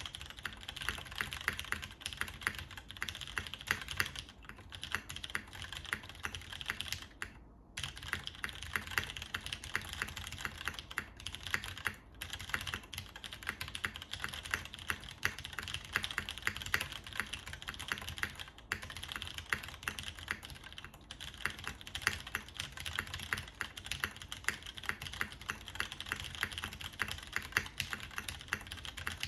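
Fast, continuous typing on a TKL mechanical keyboard with MX Purple switches, a full aluminium plate and DCS keycaps: a dense stream of key clicks, with a brief pause about seven seconds in.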